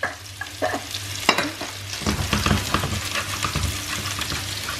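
Sliced mushrooms scraped off a plate with a spatula into a hot frying pan, then stirred around the pan with a gentle sizzle. A few separate scrapes and taps come first, and the stirring grows busier about two seconds in.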